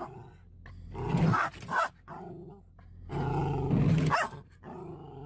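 A small dog growling and barking at the moving windshield wipers, in two long outbursts about a second in and again around three seconds in. The car's low, steady hum runs underneath.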